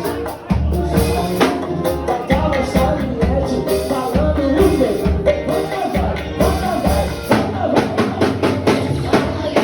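Live forró band playing a song, with the drum kit keeping a steady beat of kick and snare under melodic instrument lines.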